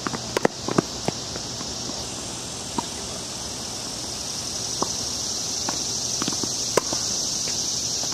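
Tennis balls being hit back and forth: sharp pops of racket on ball and bounces on the hard court every second or two. Under them runs a steady high-pitched insect drone.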